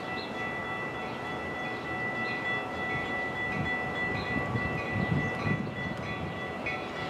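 Railroad grade-crossing bells ringing steadily for an approaching train, struck about twice a second over a sustained ringing tone. A low rumble swells briefly around the middle.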